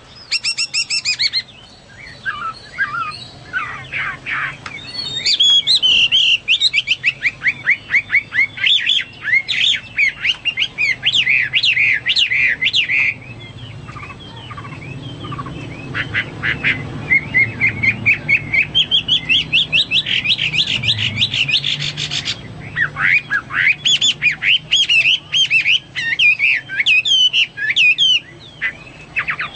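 Chinese hwamei (melodious laughingthrush) singing loudly: long, varied whistled phrases of fast repeated notes and slurred glides, with short pauses between bursts.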